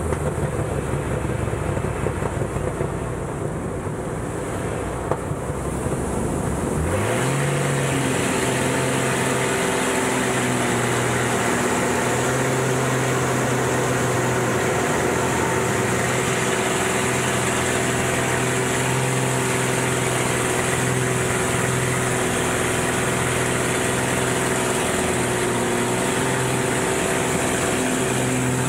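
Aerobatic monoplane's piston engine and propeller heard from inside the cockpit, with heavy wind rush. About seven seconds in the engine note rises sharply as power comes up, then holds a steady, higher note.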